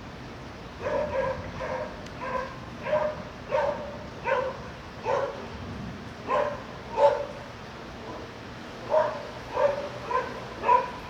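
A dog barking repeatedly, about one to two barks a second, with a pause of about two seconds before a final run of four barks.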